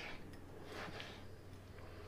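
A knife slicing through a tomato on a wooden cutting board: faint soft cuts, one at the start and another about a second in, over a low steady hum.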